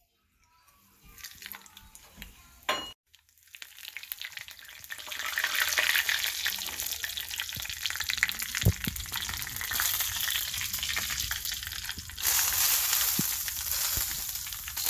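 Hot oil sizzling and crackling as mustard seeds, cumin and curry leaves go in for a tadka tempering. It starts faint and builds to a loud, steady sizzle after about four seconds.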